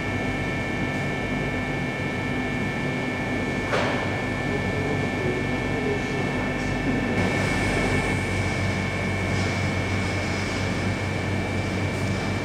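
Amada CB-83 compact press brake running idle: a steady machine hum with a constant high whine, and one sharp click about four seconds in.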